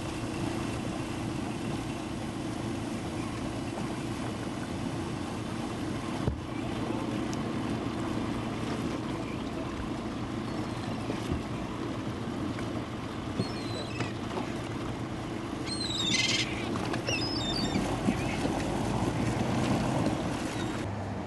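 Small motorboat's engine running steadily at low speed, a constant low hum, with its propeller churning water at the stern.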